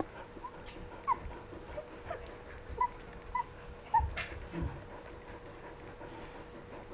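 Two-week-old rough collie puppies whimpering in short, high squeaks, about five of them in the first four seconds, then quieter. A faint steady hum lies underneath, and there are a couple of soft knocks about four seconds in.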